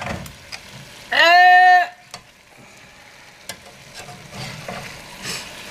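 Chicken and vegetables sizzling in a hot pan while a metal spatula stirs and scrapes through them, with scattered clicks of the spatula. About a second in, a short, high, held vocal "ooh" rises over it.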